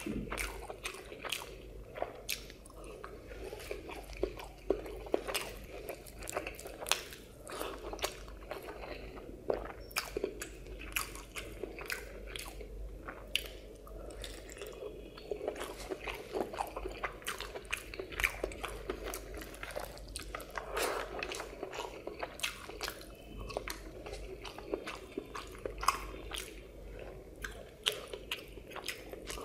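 Close-miked chewing of rice and cauliflower curry eaten by hand, with many short mouth clicks spread throughout.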